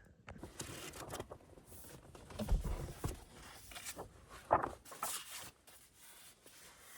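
Rustling and handling noises from someone shifting about inside a car, with a few soft knocks, the loudest about two and a half and four and a half seconds in.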